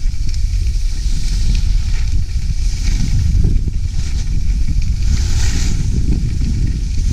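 Wind buffeting the action camera's microphone as a low rumble while skiing downhill, with skis hissing over the snow; the hiss swells louder around three and five seconds in, as on turns.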